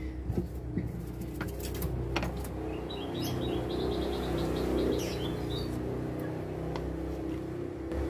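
A bird chirping in a rapid series of short, high notes for about a second, starting about three seconds in, over a steady low hum. There are a few light clicks in the first two seconds.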